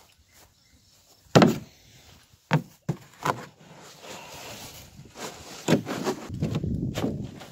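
Blue plastic kiddie pool being picked up and flipped over on grass: a sharp plastic knock about a second and a half in, a few lighter knocks, then the plastic rustling and scraping as it is handled.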